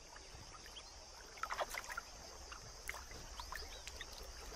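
Faint sloshing and small splashes of shallow water as elephants' feet move in a waterhole, a little louder from about a second and a half in.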